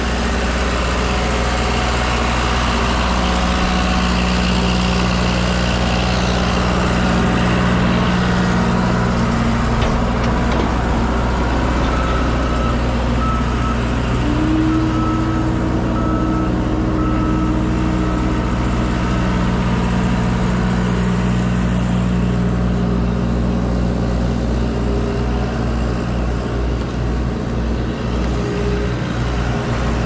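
Tractor engine running steadily under load, driving a PTO-powered sawmill and its hydraulics: a continuous mechanical drone. A high beep repeats for a few seconds around the middle.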